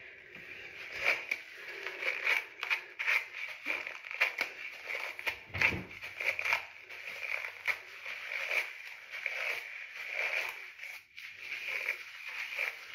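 Fingers working through curly hair thick with shampoo lather: an irregular run of wet squishing and crackling of the suds.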